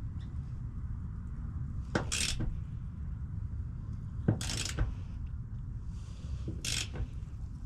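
Wrench working a threaded propane line fitting loose: three short metallic clinks and scrapes about two seconds apart, with no propane hiss, over a steady low rumble.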